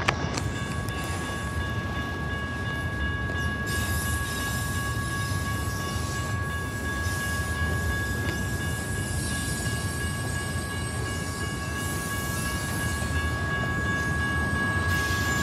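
Freight train of autorack cars rolling past: a steady rumble of wheels on rail, with a steady high two-note tone held throughout.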